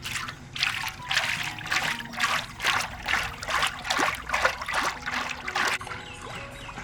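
Water splashing in a quick run of repeated strokes, about two a second, stopping about six seconds in, as when something is washed by hand in a basin of water.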